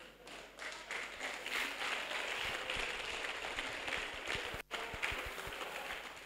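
Audience applauding: a dense, steady patter of many hands clapping that thins out near the end.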